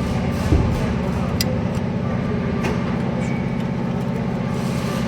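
A machine running steadily with a low, even hum, with a few short sharp clicks over it.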